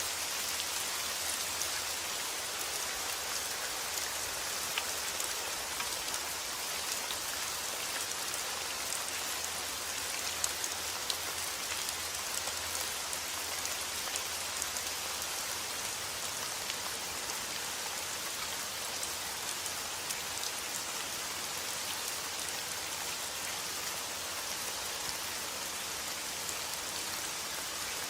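Steady rain falling, a continuous hiss with many small drops pattering on a surface.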